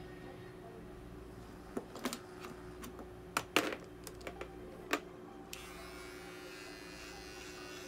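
A few sharp clicks and taps, then about five and a half seconds in a small handheld pet paw trimmer switches on and runs with a steady high buzz, for clipping the hair between a cat's paw pads.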